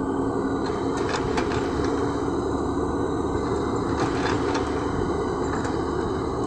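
LiuGong crawler excavator's diesel engine running steadily as the machine works its bucket over a dump truck, with short clatters and rattles about a second in, around four seconds in and again near the end.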